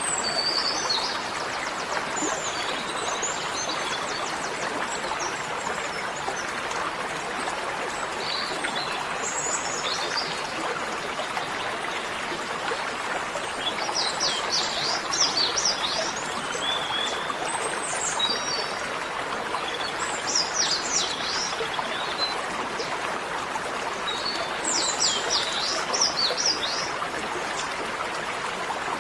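Steady rush of running water with small birds chirping over it, in bursts of quick high calls several times.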